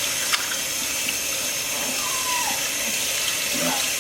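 Water running steadily from a tap into a sink while a puppy is being rinsed.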